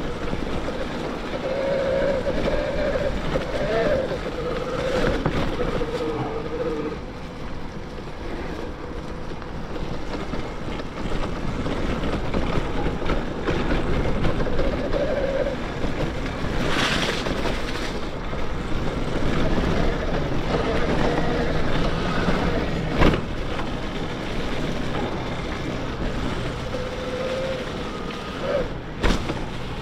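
Riding an electric mountain bike on a trail: steady wind rush on the microphone and tyre noise, with the Bafang BBSHD mid-drive motor's whine rising and falling as it pulls. A few sharp knocks from bumps come near the middle and near the end.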